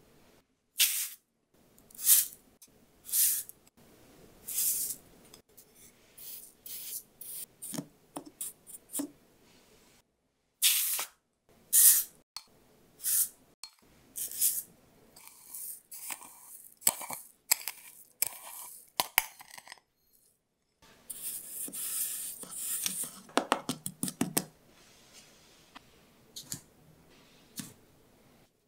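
Granulated sugar being scooped with a wooden spoon and poured into paper cups: a run of short, gritty scrapes and rustles, with a longer, denser stretch of pouring about three quarters of the way in.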